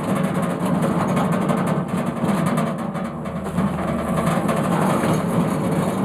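Sawmill running loud and steady after coming up suddenly at the start, with a constant low drone and a fast, fine rattle over it.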